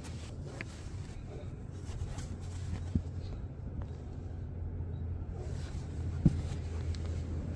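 Hand handling the rear floor carpet over a stowed bottle jack, with two soft thumps about three seconds apart, the second louder, as the carpet is lifted and patted back down. A steady low hum runs underneath.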